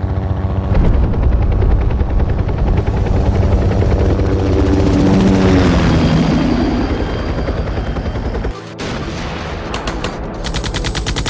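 Film sound effects: a helicopter's rotor beating with rapid automatic gunfire. About three-quarters of the way through, the sound breaks off suddenly and a new burst of rapid automatic gunfire follows.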